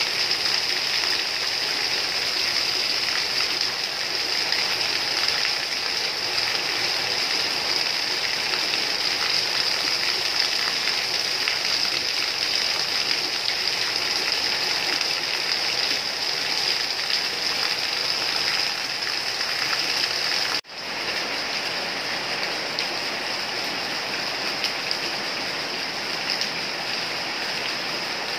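Steady heavy rain, an even hiss with no other events. About two-thirds of the way through it cuts out for an instant and resumes a little quieter, an edit point in the looped recording.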